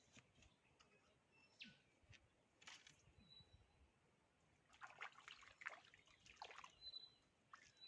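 Near silence at the waterside, broken by faint short high chirps and clicks, busiest about five to six seconds in.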